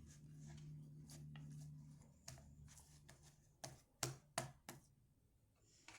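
Cloud slime with instant snow mixed in being kneaded and folded by hand: a few soft, sharp sticky clicks and pops, several close together about four seconds in, over a faint low hum.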